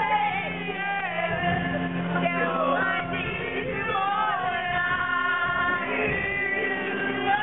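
Music with a voice singing over it; the voice slides up and down over steady held low notes.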